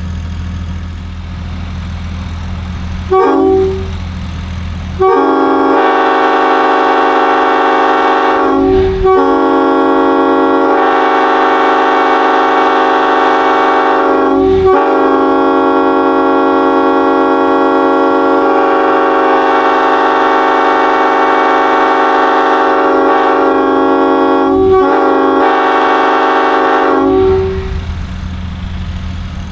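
Mutt Nathan K5 five-chime locomotive air horn, built from mixed bells: a short toot about three seconds in, then one long blast of its chord for over twenty seconds, broken briefly three times. A low steady hum sits under the quiet stretches at the start and near the end.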